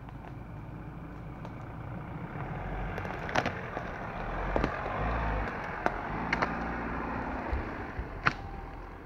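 Ford Ranger Raptor pickup driving slowly past on a rough dirt trail, its engine running low and growing louder as it passes. About six sharp cracks and knocks come from under the tyres in the second half.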